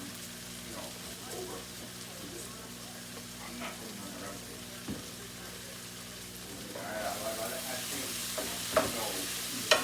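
Food sizzling in a frying pan on the stove, the sizzle growing louder about seven seconds in, with a few sharp knocks of a utensil against the pan near the end.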